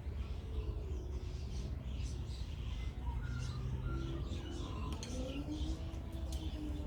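Faint chicken calls, with one longer drawn-out call near the end, over a steady low rumble.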